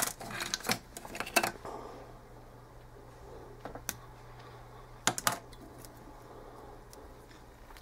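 Scattered sharp clicks and taps of small fly-tying tools handled at the vise: a cluster in the first second and a half, a couple near four seconds, and a quick triple about five seconds in, over a faint steady low hum.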